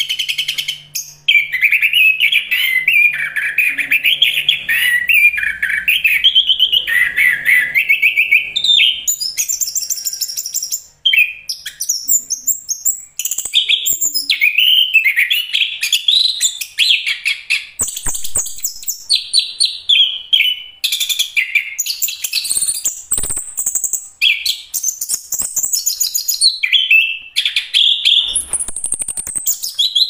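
Chestnut-capped thrush (anis kembang) singing a long, fast, varied warbling song of rapid chirps and trills, with brief pauses about a second in and again around eleven seconds.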